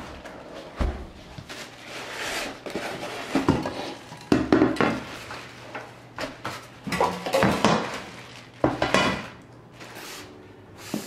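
Household items, such as dishes, clattering and knocking in irregular bursts as they are handled and set down.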